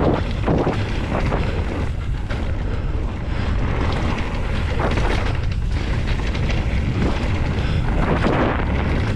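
Heavy wind rumble on a camera microphone during a fast mountain-bike descent, mixed with the rough, irregular clatter of the bike's tyres and frame over the trail surface.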